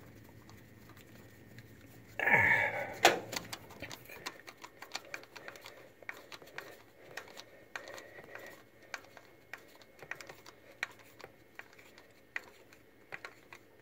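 Light, irregular clicking and ticking of a screwdriver turning a small screw in the choke bracket on top of an Edelbrock carburetor. A short, louder sound comes about two seconds in.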